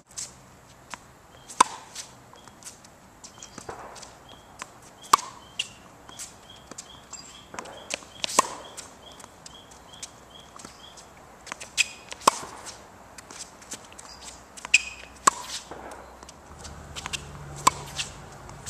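Tennis ball struck by a racket and bouncing on a hard court during a baseline rally: sharp pops, the loudest every three to four seconds, with softer bounces and shoe scuffs between them.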